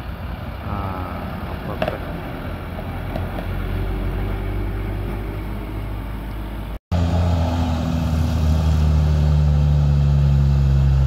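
Highway traffic noise, then an abrupt cut about seven seconds in to a bus's diesel engine running close by, loud and steady with a deep hum.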